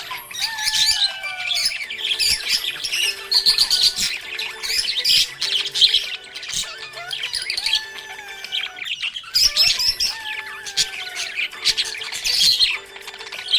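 A group of budgies chirping and squawking in a continuous, rapid chatter, over background music with held notes.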